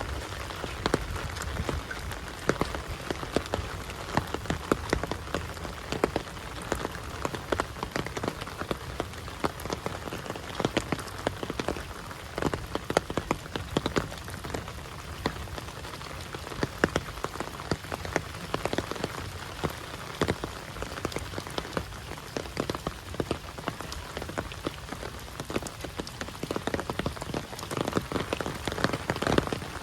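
Heavy rain falling: a steady hiss dotted with many sharp, close drop impacts.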